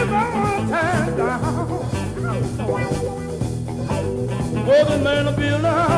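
Live electric blues band playing: electric guitars and drums, with a man singing over them.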